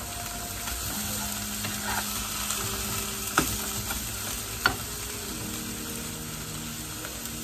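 Bean sprouts sizzling as they stir-fry in a wok, stirred and tossed with a wooden spatula. Two sharp knocks on the pan come about three and a half and nearly five seconds in.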